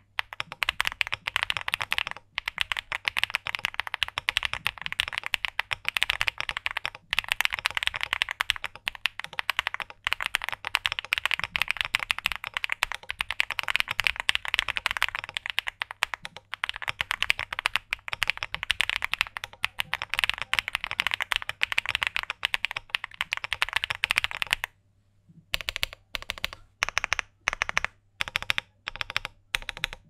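Owlab Spring mechanical keyboard with Akko Cream Blue V3 Pro switches on a polypropylene plate, with plate, PE and lower case foams, being typed on fast in a steady stream of keystrokes. About 25 seconds in the typing stops briefly, then goes on as slower, separate keystrokes, a couple per second.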